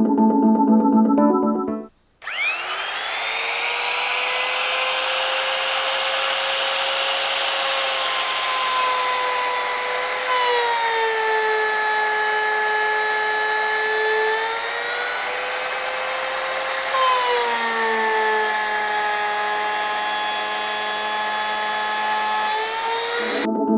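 Electric power tool running continuously, a steady motor whine whose pitch drops a little several times as it takes load and then recovers.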